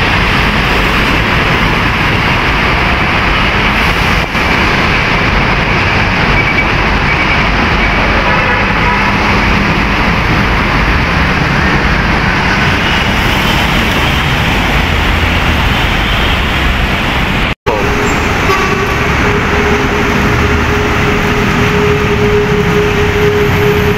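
Busy road traffic: heavy trucks, cars and motorcycles passing close by, a dense steady rumble of engines and tyres. After a sudden cut about two-thirds of the way through, a single steady tone like a held horn sounds over the traffic for the last several seconds.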